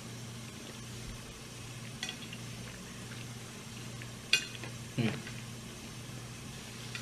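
Quiet eating at a table: a few light clicks, the sharpest a little after four seconds in, over a steady low hum, with a short murmured 'mm' about five seconds in.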